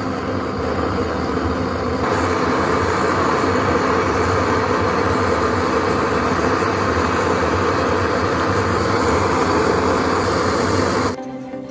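Gas blowtorch flame burning steadily, a loud even rush of noise that gets louder about two seconds in and cuts off suddenly near the end.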